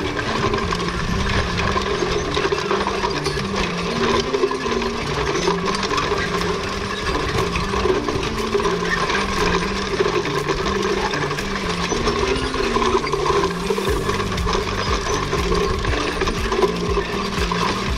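12-foot John Deere grain drill running over tilled ground, heard close up from the drill itself: a steady metallic rattle and clinking of its disc openers, springs and seeding parts, full of rapid small clicks.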